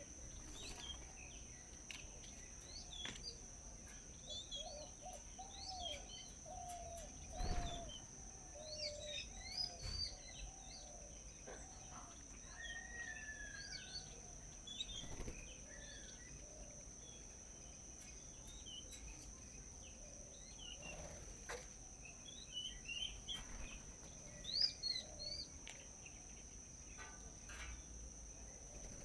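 Several wild birds chirping and calling, with a run of low, evenly repeated notes over the first third, over a steady high-pitched insect drone. A few sharp clicks sound among the calls.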